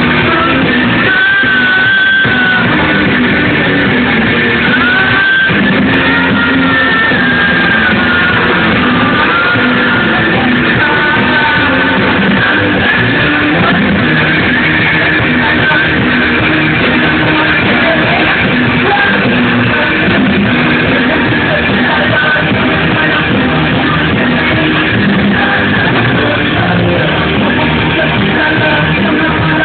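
Rock band playing live: electric guitar and amplified singing, loud and continuous, heard from amid the crowd.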